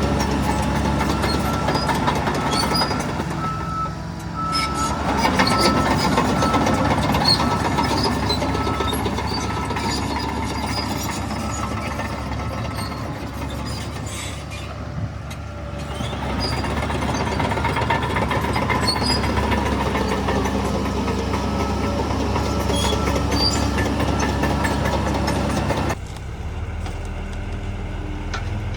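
Heavy diesel earthmoving machinery running under load, with a reversing alarm beeping steadily near the start and again later on. The engine swells for a few seconds soon after the start, and the sound drops abruptly near the end.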